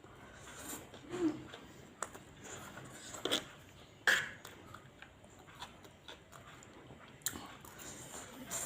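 Close-up eating sounds: wet chewing and lip smacks on fried rice vermicelli, with a handful of sharper smacks spaced irregularly a second or more apart.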